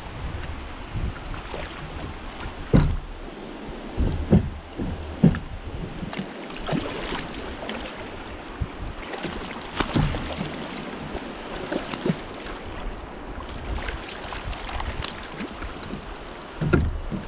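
Steady rush of water running through a spillway, broken by irregular low thumps and knocks, the loudest about three, four and five seconds in and again near the end.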